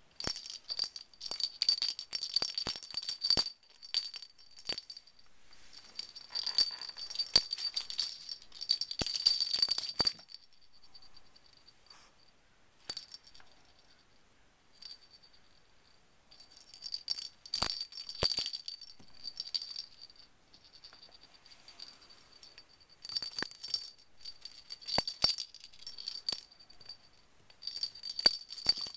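Small bell on a plush cat toy jingling and rattling in bouts as a kitten bats, bites and tosses it, with quieter pauses between bouts and a few sharp clicks of the toy striking the wooden floor.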